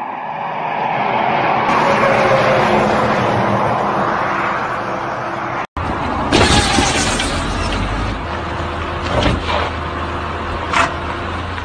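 Road vehicle noise: a steady rumble of engines and traffic that breaks off suddenly about six seconds in. It is followed by a deeper car engine note with several sharp, loud surges.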